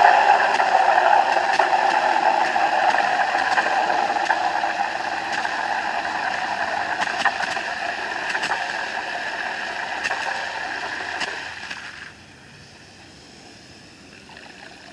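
Water from a garden hose running into the chickens' water container, steady and slowly getting quieter, then cut off about twelve seconds in.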